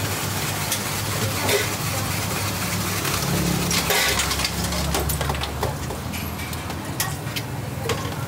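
Steady low hum of street traffic, swelling between about three and five seconds in as a vehicle passes, with scattered sharp clinks and knocks of metal spoons against cups and containers.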